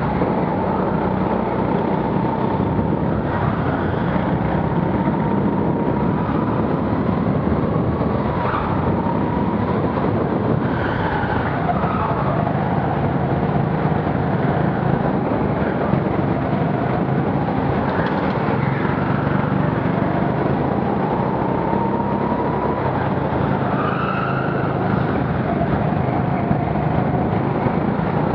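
Go-kart running at racing pace, heard from the driver's helmet: a steady motor drone with a whine that rises and falls every few seconds as the kart speeds up and slows through the corners.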